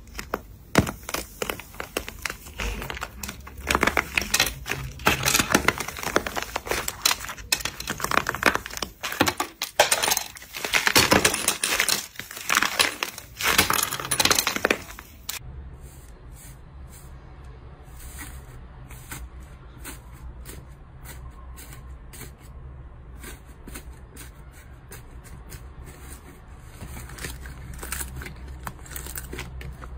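Dry crust on a heart-shaped slime cracking and crunching as hands squeeze and break it, a loud, dense run of crackles and snaps. About fifteen seconds in it cuts to a much quieter stretch of scattered small clicks and pops as another slime is pressed by hand.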